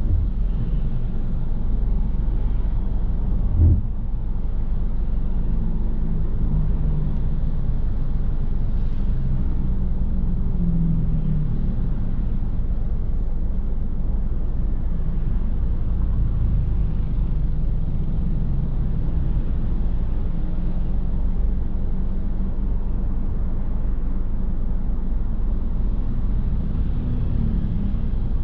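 A car's steady low rumble of engine and road noise while driving, with one short thump about four seconds in.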